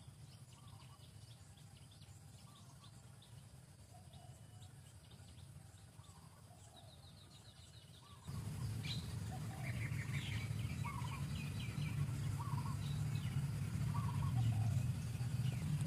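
Outdoor ambience of small birds chirping repeatedly over a steady low rumble. About eight seconds in, the rumble and the chirps suddenly get louder.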